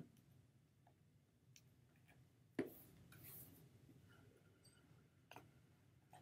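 Faint handling sounds of a white cardboard product box being unpacked: a sharp tap at the start, a knock about two and a half seconds in followed by a brief scuffing rustle, and another small tap about five seconds in, with near silence between.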